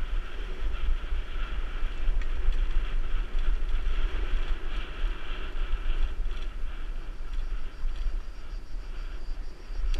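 Wind buffeting the microphone of a camera on a mountain bike riding down a dirt track: a heavy, fluctuating low rumble with a steady hiss above it.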